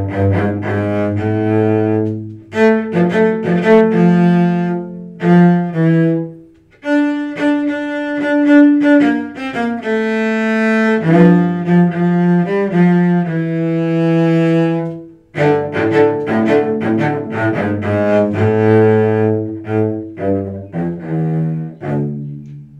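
Solo cello bowed, playing a melody of short separate notes, with a longer held note about eight seconds in. The playing stops briefly about 2, 6 and 15 seconds in, and the last note fades out at the very end.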